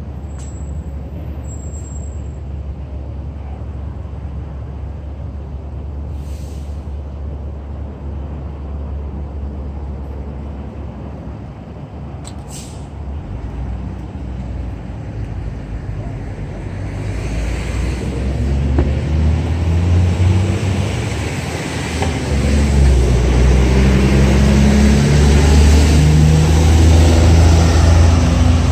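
A vehicle engine running as a steady low rumble; a little over halfway through, the engine noise grows louder, its note rising and falling.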